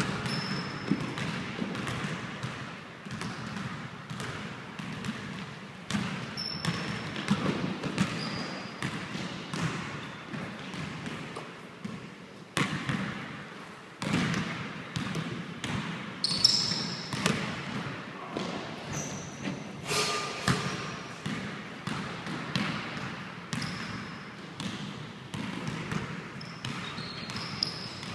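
A basketball being dribbled and bouncing on a hardwood gym floor, with short sneaker squeaks now and then.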